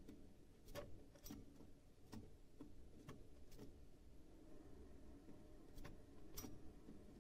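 Faint, sharp clicks at irregular intervals, about nine in all, from a pet canary moving about its wire cage.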